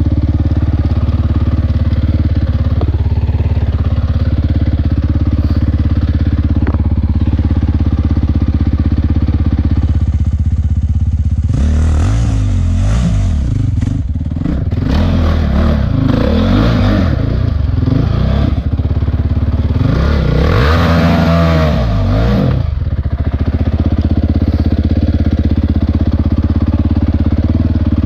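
Honda CRF450X single-cylinder four-stroke engine running at low, steady revs. From about twelve seconds in to about twenty-three seconds it is revved up and down again and again, rising and falling in pitch, then it settles back to a steady low speed.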